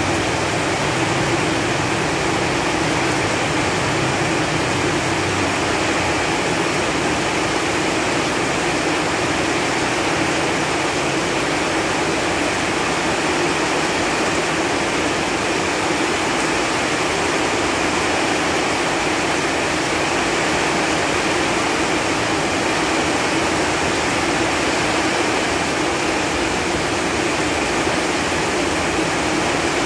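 Steady rain falling on leaves, an even wash of many drops with no single strike standing out.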